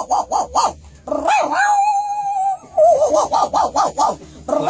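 A man's voice imitating a small dog: a run of quick yaps, about six a second, then one long steady whine near the middle, then more rapid yapping.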